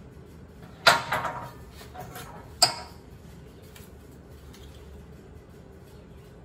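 Hand-operated sheet metal brake clanking as it is released after a bend: a loud metallic clank about a second in that rings briefly with a few smaller rattles, then a second sharp clank about a second and a half later.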